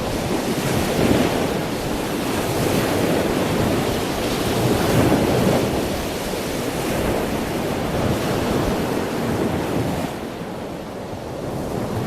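Ocean surf: waves washing in a continuous rush that swells and ebbs, easing off briefly near the end before building again.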